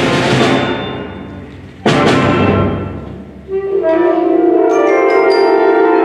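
A school concert band playing. A held chord fades, then a sudden loud accented hit about two seconds in rings away, and a new sustained chord from winds and brass enters, with short bell-like high notes near the end.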